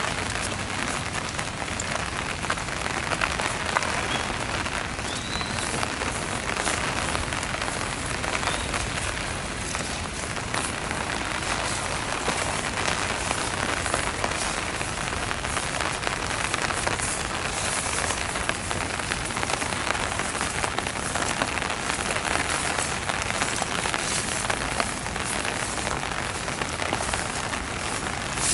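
Heavy downpour falling steadily: a dense, unbroken hiss made of countless fine drop impacts.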